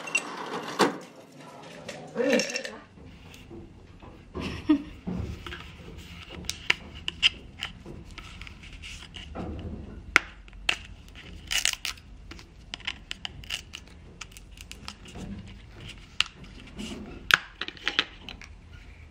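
Ice dropping from a refrigerator door dispenser into a glass mason jar, clinking loudly for the first few seconds. Then scattered clicks and knocks of the jar and a bottle being handled on a stone countertop, over a low steady hum.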